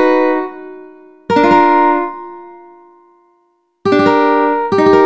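Ukulele chords played one at a time, each struck sharply and left to ring and fade. One chord is still ringing at the start, and new chords sound about a second in, near four seconds and just before the end.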